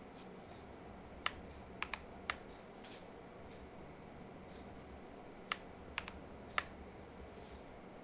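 Isolated keystrokes on a Cyberboard R3 mechanical keyboard with lubed Boba U4T tactile switches, an aluminum plate and POM keycaps. About seven short, sharp key clacks come in two small groups, a few seconds apart.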